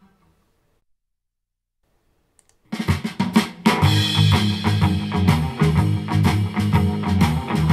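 Near silence, then about two and a half seconds in a drum-led music track starts with snare and bass drum hits and a strong bass line. It is played through a pair of home-built back-loaded horn speakers with ONKYO 8 cm full-range drivers and picked up by a microphone in the room.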